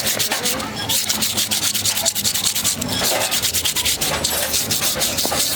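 Rapid back-and-forth sanding strokes, several a second, making a dry, scratchy rasp.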